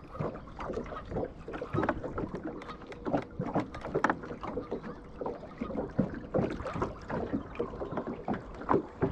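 Water lapping and slapping irregularly against the hull of a small boat as it moves across choppy lake water.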